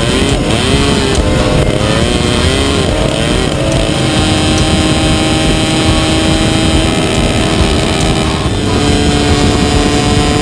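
Vintage McCulloch 100cc two-stroke kart engine running at racing speed, heard on board. Its revs rise and fall quickly over the first few seconds, then hold steady and high, dropping a little about eight seconds in.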